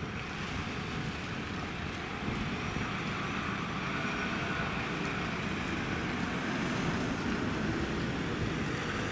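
A Mitsubishi pickup truck driving past on a street, its engine and tyre noise growing louder as it passes.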